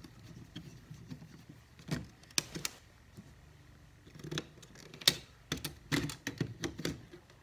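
Screwdriver and fingers working a terminal screw and wire loose on an old thermostat's plastic wall base plate: scattered small sharp clicks and taps, a few at first and more of them in the second half.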